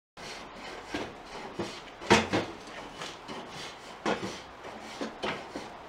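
Irregular knocks and clatters of things being handled, about seven sharp ones with the loudest about two seconds in, over a faint steady hiss.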